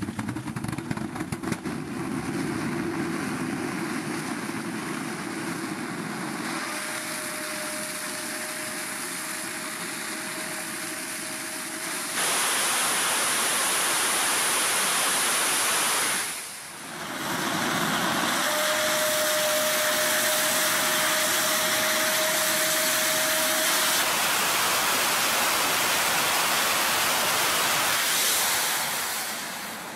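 The G-70 single-port hybrid rocket engine, a 70 kN motor, firing on a static test stand: a loud, steady roar of exhaust noise. Twice a steady whistle-like tone sits on top of the roar. The roar steps up and gets brighter about twelve seconds in, drops away briefly a little past the middle, and fades near the end.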